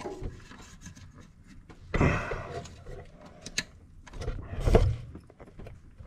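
Hands working at a plastic wiring-harness connector: scattered clicks and rubbing, with two louder rustling, scraping bursts about two seconds in and near the end.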